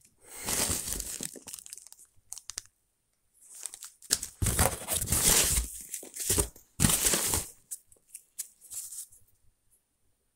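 Packing material rustling and crinkling as hands dig through a cardboard box of foam packing peanuts and a plastic bag, in three main bursts: from about half a second in, again from about four to six seconds, and briefly around seven seconds, with small rustles between.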